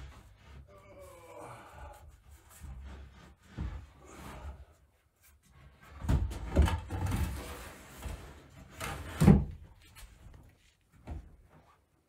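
Cottonwood shelf boards being handled and set onto wooden framing: irregular bumps and scrapes of wood on wood, with a cluster of heavier thumps about six seconds in and a single sharp knock about nine seconds in.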